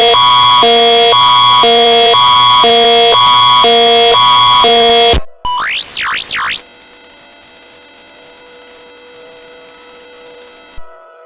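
Synthesized emergency-alert attention tone: two chords of steady electronic beeps swap back and forth about twice a second over a constant high tone, then cut off about five seconds in. A quick rising-and-falling electronic sweep follows, then a steady shrill tone with a lower hum under it for about four seconds, which cuts out near the end.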